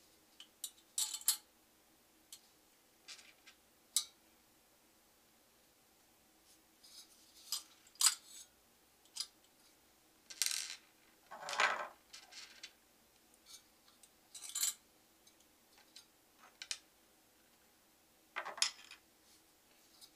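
Scattered light metallic clicks, clinks and taps, with a longer scrape or two about halfway through, as a Zalman CNPS10X Optima tower heatsink and its mounting hardware are handled and set in place on a motherboard.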